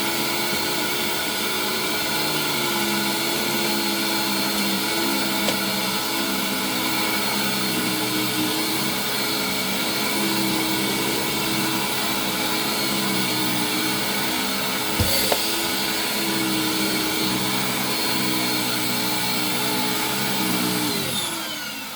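Hoover Windtunnel canister vacuum with a Eureka power nozzle running steadily, with a short knock about two-thirds of the way through. Near the end it is switched off and its pitch falls as the motor winds down.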